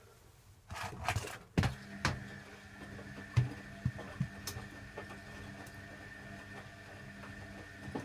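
Hoover Electronic 1100 front-loading washing machine during a wash: a few sharp knocks, then about two seconds in the drum motor starts and runs steadily with a low hum and a higher whine, while the wet load thuds in the drum.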